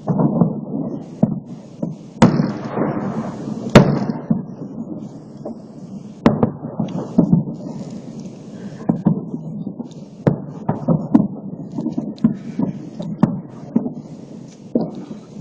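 Fireworks salute going off: a rapid, irregular series of booms and sharp cracks with rumbling between them, the loudest bangs about two and four seconds in. Heard through a mobile phone's microphone.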